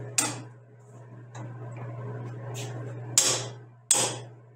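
Small ball-peen hammer tapping a ground steel marking bar fed through the rifle action, to dent transfer marks onto the polished barrel breech for the extractor cut. A sharp metallic tap comes just after the start, lighter taps follow in the middle, and two hard taps under a second apart come near the end, each with a brief ring, over a steady low hum.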